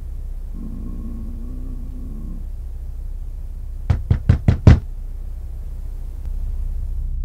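Five quick, sharp knocks on a door in under a second, the last the loudest, over a steady low rumble.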